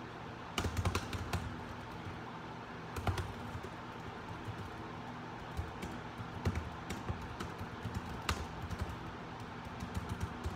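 Typing on a laptop keyboard: irregular bursts of quick keystrokes with short pauses between them, over a steady low hum.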